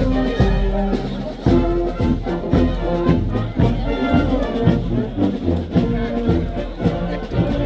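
Brass band music: held brass notes over a steady march beat of about two drum hits a second.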